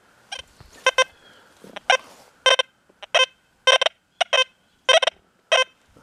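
XP Deus II metal detector sounding short, high beeps of one pitch, some in quick pairs, about every half second as the coil is swept back and forth. The beeps are the target signal of a gold ring with a diamond lying among iron nails, picked up in the detector's Sensitive program.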